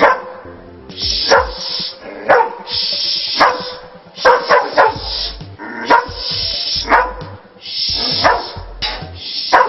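A dog barking repeatedly, about once a second, with a quick run of four barks near the middle, over background music.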